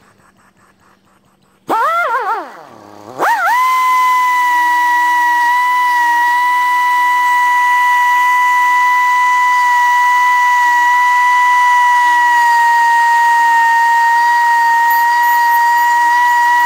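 Die grinder starting up a second or two in, its pitch swooping up and down before it settles into a steady high whine as it grinds out the rough cut end of a fuel-line fitting clamped in a vise.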